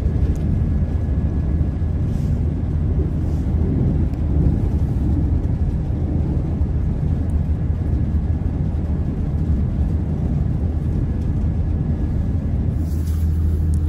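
Class 170 Turbostar diesel multiple unit under way, heard from inside the passenger saloon: a steady low rumble of the train running, with no let-up.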